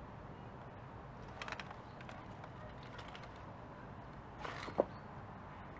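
1/10 scale RC rock crawler picking its way over stones, its steel-rimmed wheels knocking and clattering on the rock in a few short bursts, the sharpest a single snap near the end.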